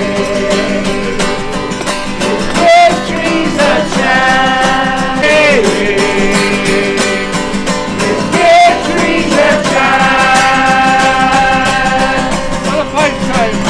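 Guitar music with a melody of long held notes that slide between pitches.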